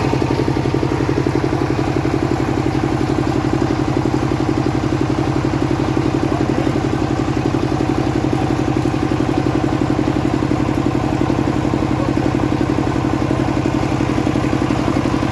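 Engine of a homemade band-saw sawmill running steadily at a constant speed, with a fast even pulsing.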